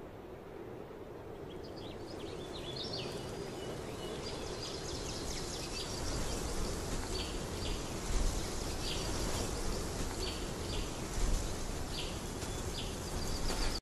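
Outdoor nature ambience slowly fading in: a steady rushing noise with short, high bird chirps repeating about once a second from about two seconds in.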